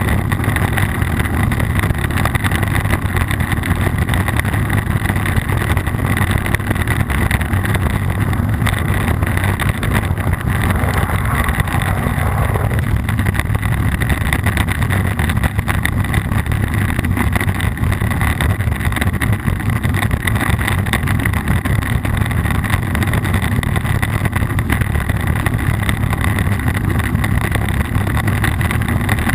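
Steady rumbling drone of a downhill ride heard through a low-mounted action camera: wind buffeting the microphone and tyres running over the wet trail.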